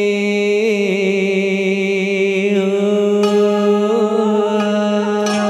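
A man singing a Vietnamese song holds a long note with vibrato over a sustained backing accompaniment. Plucked string notes come in from about halfway through.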